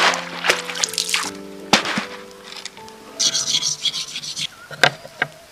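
A small fired-clay movable-type block scraped back and forth on a flat grinding stone to polish it, a gritty rasp lasting about a second past the middle, after a few sharp clicks of clay pieces. Soft background music with long held notes plays underneath.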